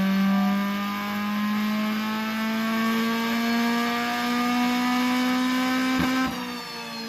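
Car engine running at high revs under load, its pitch climbing slowly and steadily as the car accelerates, then dipping near the end.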